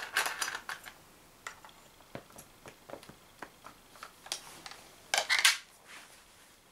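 Clicks and rattles of an Umarex HDS68 CO2 launcher being handled and loaded. There is a cluster of clicks at the start, scattered single clicks after it, and a louder rattling burst about five seconds in.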